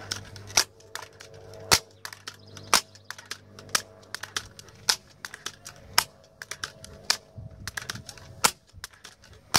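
Daisy 880 multi-pump air rifle being pumped up, its pump lever giving a sharp clack about once a second on each stroke, counting up to ten pumps.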